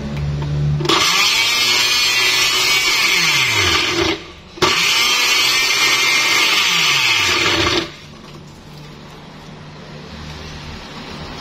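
Electric countertop blender with a glass jar running in two bursts of about three seconds each, a short break between them, churning chunks of papaya, banana, cucumber and guava with milk and ice. It stops about eight seconds in.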